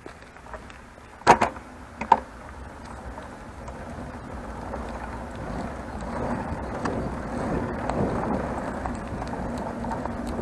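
Single-speed bicycle jolting and rattling on a rough unpaved road: two sharp knocks about a second apart near the start, then a rumble of tyres on the rough surface that grows steadily louder.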